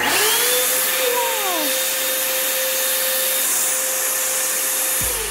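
Snow machine's blower fan running: a loud, steady rushing hiss with a motor whine. It starts suddenly and winds down near the end, the whine dropping in pitch.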